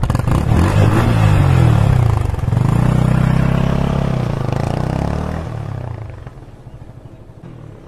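Yamaha R15M's 155 cc single-cylinder engine, breathing through a homemade exhaust made from a spray can, revving hard as the motorcycle pulls away. The pitch climbs, drops briefly about two and a half seconds in, climbs again, then the sound fades as the bike rides off.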